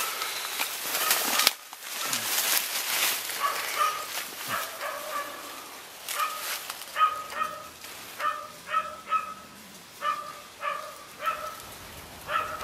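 Dry reeds and cane rustle loudly as they are pushed through, stopping sharply about a second and a half in. From about three seconds in, a canine gives a steady series of short, high yapping barks, nearly two a second.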